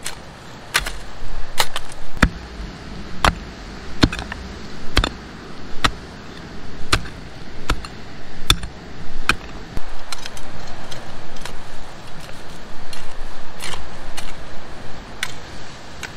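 Small hand hoe chopping into dry, stony soil with sharp strikes about once a second, then lighter scraping and clicking as loosened dirt is raked and levelled, with a couple of harder strikes near the end.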